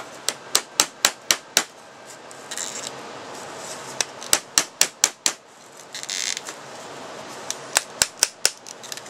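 Pliers bending and hooking a short length of wire, making sharp clicks in three quick runs of about four a second, with brief rustling between the runs.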